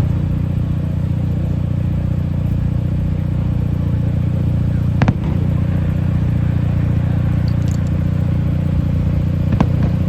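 Car engine idling steadily close by, with a sharp pop about five seconds in and another near the end.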